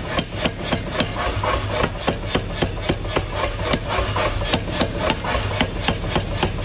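Rapid, regular hammer blows on steel, about four or five a second, as the metal is forged by hand.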